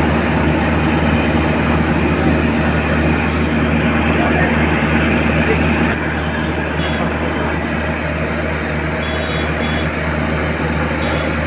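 Heavy crane engine running steadily under load, with a constant low hum; it drops slightly in level about halfway through.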